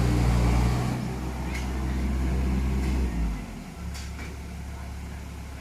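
Komatsu excavator's diesel engine running steadily, dropping to a lower, quieter hum about three seconds in, with a few faint clicks over it.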